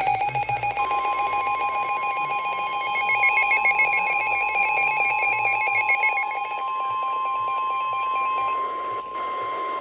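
Emergency Alert System attention signal: a steady, loud alert tone held for about nine seconds, layered with fast two-note warbling tones that drop out about two-thirds of the way through.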